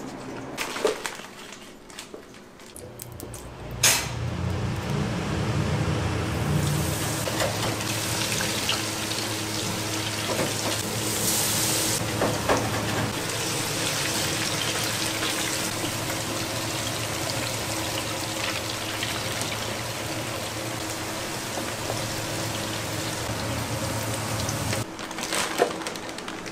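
Water running steadily, as from a tap filling a container, starting with a knock about four seconds in and stopping shortly before the end, over a faint steady hum.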